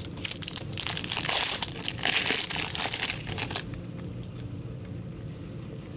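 A hockey card pack's foil wrapper crinkling as it is torn open and crumpled. The sound comes in two spells of about a second and a half each and stops about three and a half seconds in.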